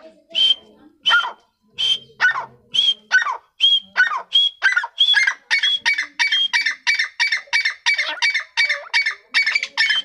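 Grey francolin calling: a long run of loud, sharp, repeated notes that speeds up from a little under two a second to about three a second.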